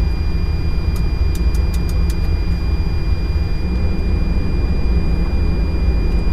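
Steady low rumble in an Airbus A330-900 flight deck during engine start, with a faint steady high whine and several light clicks between about one and two and a half seconds in.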